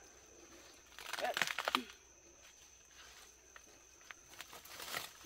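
Dry banana leaves and undergrowth rustling and crunching as a person shifts a heavy bunch of green bananas and steps through the litter. The loudest rustle comes about a second in, followed by scattered footsteps. A faint steady high insect buzz sits underneath.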